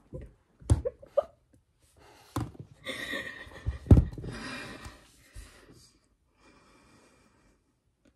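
A young woman's excited breathing and gasps, in short bursts, with a sharp knock about four seconds in.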